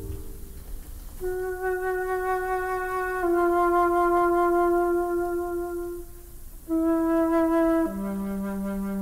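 Slow soundtrack melody of long held notes on a flute-like woodwind, about four notes each lasting a second or two, the last one lower, over a faint low rumble.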